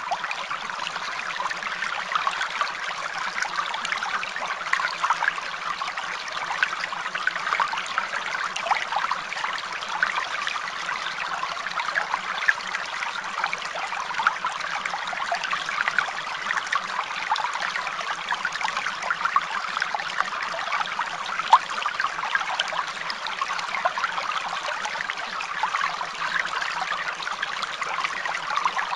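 Steady trickling, running water, like a small stream, with a constant fine bubbling and crackle.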